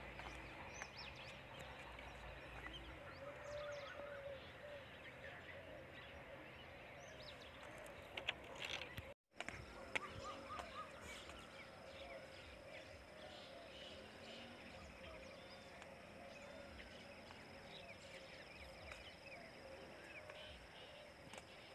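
Quiet open-country ambience with scattered bird chirps. A few sharp knocks come about eight to ten seconds in, around a brief dropout, and after it a thin, steady high-pitched tone runs underneath.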